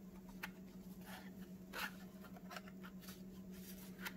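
Faint handling sounds: a small plastic thermometer-hygrometer and its cardboard box moved about in gloved hands, giving a few soft clicks and rustles, the strongest just under two seconds in, over a steady low hum.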